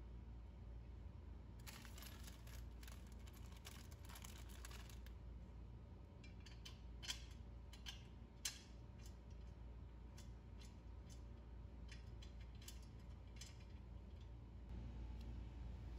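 Faint clicking and scraping of metal parts as the upright pole of a metal clothes rack is screwed by hand onto its tubular base, with two sharper clicks in the middle.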